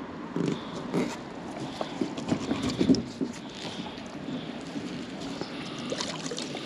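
Irregular knocks and clunks with some rustling from gear handled in a boat while magnet fishing, bunched from about half a second to three and a half seconds in, then quieter handling noise.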